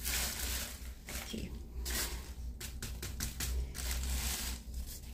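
Thin plastic bag rustling and crinkling in short bursts as it is handled.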